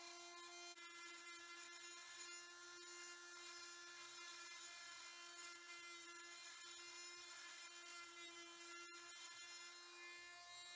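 Corded oscillating multi-tool running faintly at a steady high buzz, then switched off near the end, its pitch falling as it winds down.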